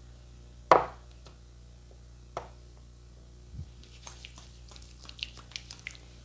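Hands striking during a massage: one sharp, loud slap about a second in, a softer slap a little later, a low thud, then a quick run of small clicks and crackles.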